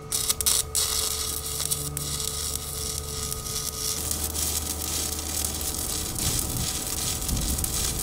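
Arc welding on mild steel square tubing: the arc gives a steady, fast crackle, with a steady hum underneath.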